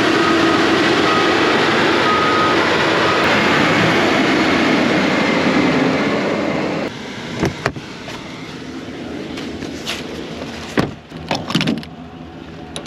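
Self-propelled RoGator crop sprayer's engine running loud and steady, with a faint whine over it. About seven seconds in it drops to a quieter hum, and a few short knocks and clanks follow.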